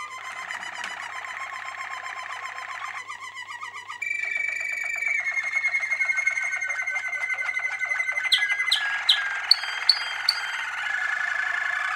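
Domestic canary song: a continuous run of fast trills and rolled notes, changing phrase every few seconds, with a handful of sharp, loud high notes about two-thirds of the way through.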